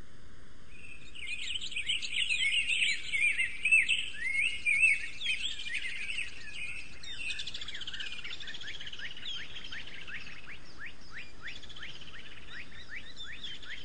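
Birds chirping and singing at dawn, starting about a second in: busy overlapping chirps and trills at first, then a steady run of quick, repeated downward-sweeping chirps, over a faint steady hiss.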